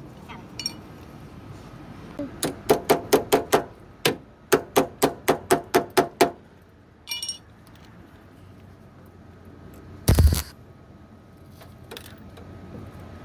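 Hammer striking the rusty sheet-steel lower panel of the truck cab in two quick runs of blows, about four to five a second, each with a short metallic ring. Later a single metallic clink and, about ten seconds in, one heavier thud.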